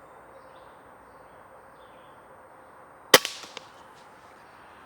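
A single shot from a Crosman Notos PCP air rifle about three seconds in: one sharp crack with a short ring-out, followed by a faint click about half a second later.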